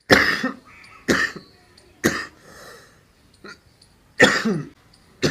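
A man coughing in a fit: three hard coughs about a second apart, a pause, then more coughs. He has an ongoing cough.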